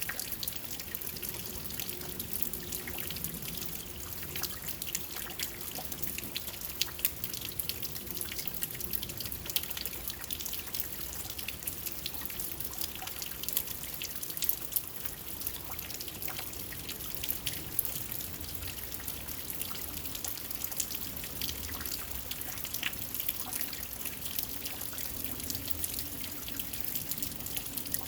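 Steady rain falling, a dense, even spatter of many small drop impacts with dripping.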